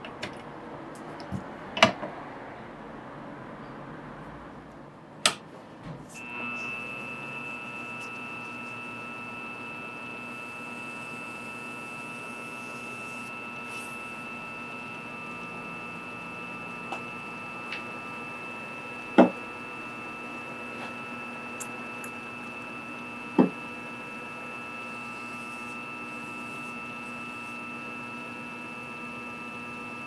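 A few clicks and knocks of handling at a pen-turning lathe, then about six seconds in the lathe's motor starts and runs steadily with a high whine. A couple of sharp knocks stand out later on.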